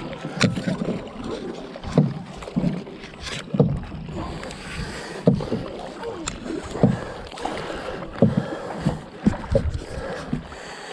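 Canoe paddles stroking through lake water: a short, low plunk about every second as the blades dip and pull.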